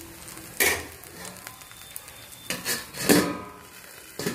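A pitha frying in oil in an aluminium kadai, a low steady sizzle, broken by about four metal clanks, the loudest about three seconds in, as an aluminium plate is set over the kadai as a lid.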